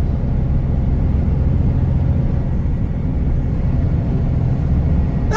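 Diesel engine and road noise of a Kenworth T360 concrete agitator truck, droning steadily inside the cab while driving.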